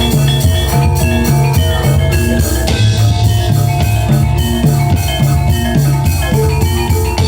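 Reog gamelan ensemble playing a steady rhythmic piece: drums and tuned gongs and metallophones keep a repeating beat under a higher melodic line.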